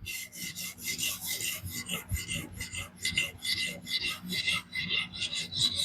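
An 800-grit diamond sharpening plate on a fixed-angle sharpener being stroked back and forth along a DC53 steel knife edge wetted with Windex: a quick run of even rasping strokes, about four a second.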